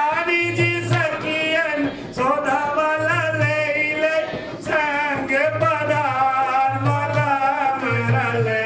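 Male voice singing a devotional hymn through a microphone, with a hand drum beating underneath in short spells.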